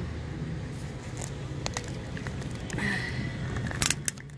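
Handling noise inside a car: soft rustling and scattered clicks, with a quick pair of sharper clicks near the end, over a low steady hum.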